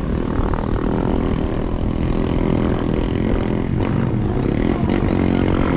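A 4x4 vehicle's engine running steadily as it drives over rough riverbed ground.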